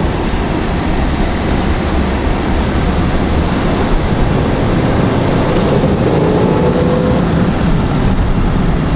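Steady road and wind noise inside a moving BMW X5 E70, with the engine running under a low rumble.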